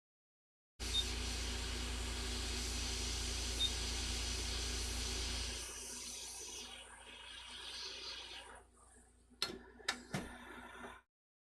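Hot air rework station blowing a steady hiss with a low hum, used to lift a small surface-mount fuse off a circuit board. The airflow drops off about halfway through, and a few sharp clicks come near the end.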